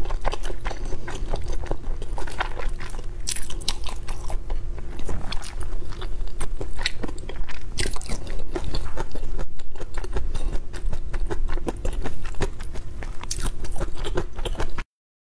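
A person eating close to a lapel microphone: repeated bites and chewing of skewered food, with many short crunching snaps. The sound stops abruptly near the end.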